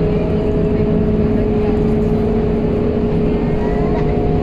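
Scania K230UB bus under way, heard from inside the passenger cabin: its nine-litre five-cylinder diesel engine running as a steady drone with a constant whine over it, plus road and tyre noise.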